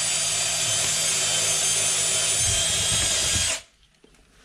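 Power drill with a 3/16-inch bit running steadily as it drills a hole into a baseboard, then stopping suddenly about three and a half seconds in.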